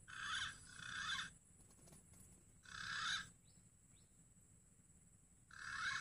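Green pigeon (punai) calls: four short calls, two in quick succession at the start, another about three seconds in and one near the end, over a steady high-pitched drone.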